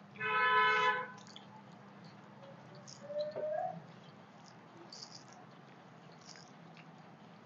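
A short, loud pitched cry like a cat's meow, under a second long, then a fainter rising call about three seconds in. Faint clicks and squishes of fingers mixing rice on metal plates come in between.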